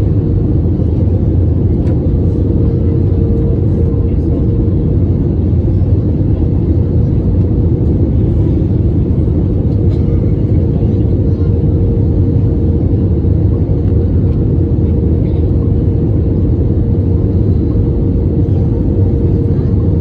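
Airbus A321 cabin noise in flight: a steady, loud rumble of the engines and airflow, with a steady hum running through it.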